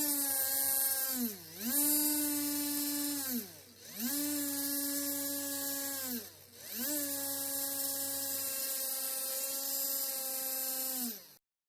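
3D-printed three-phase brushless motor, driven by an ESC, whining as it runs: the pitch climbs, holds steady, then sags and climbs again several times as its speed is changed, over a steady hiss. Near the end the whine falls away and stops.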